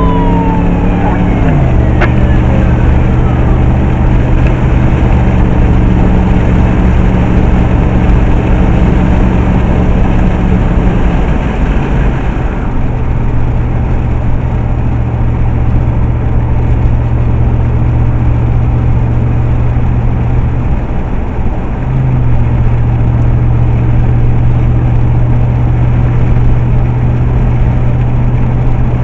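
Emergency vehicle's engine and road noise heard from inside the cab: a loud, steady drone that drops in pitch about a second and a half in and changes pitch again twice later, like gear changes. Over the first couple of seconds a falling tone fades out as the siren winds down.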